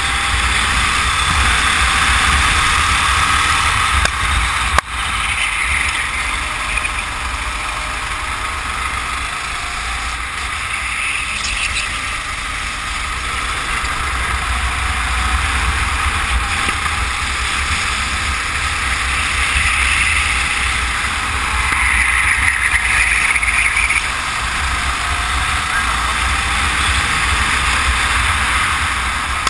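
Go-kart engine running hard during a race, its note swelling and easing again and again over a steady low rumble. A single sharp knock comes about five seconds in.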